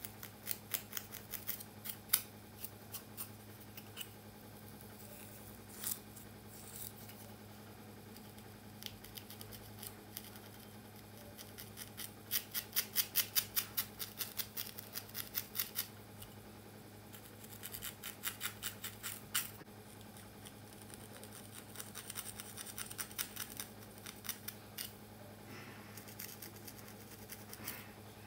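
Tail of a wooden comb scratching and picking through tightly braided hair as cornrows are loosened, in quick runs of scratchy strokes several a second, the busiest run about halfway through. A faint steady hum lies underneath.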